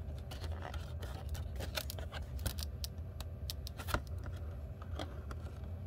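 Stiff clear plastic blister packaging being handled, giving a run of irregular crinkles and clicks, with one louder click about four seconds in.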